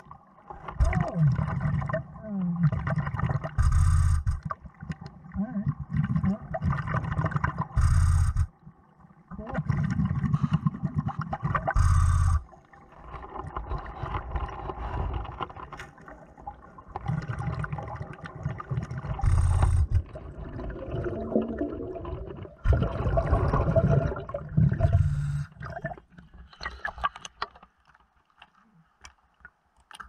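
Underwater breathing through a dive regulator: repeated breath cycles of rumbling, bubbling exhalation and hissing, about one every four seconds. A few light scrapes and clicks near the end.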